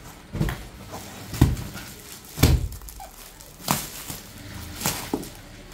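Plastic-wrapped packs of suit fabric being handled and set down on a counter: about six dull thumps, roughly one a second, each with a crinkle of the plastic wrapping.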